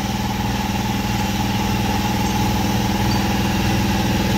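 A machine running with a steady, unchanging drone.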